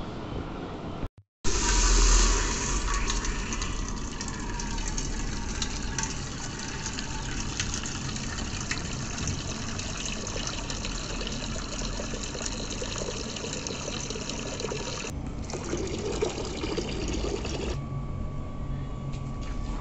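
A stream of water pouring and splashing into a large stainless steel pot, filling it. The sound starts about a second in, after a brief silence.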